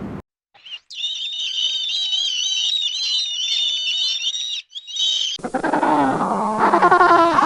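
Farm animals calling: a chorus of several high, wavering voices, then from about five seconds in, louder and lower-pitched animal calls that rise and fall.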